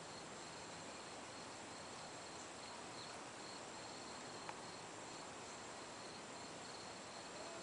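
Crickets chirping in a steady, evenly pulsing high trill over a background hiss, with a single sharp click about four and a half seconds in.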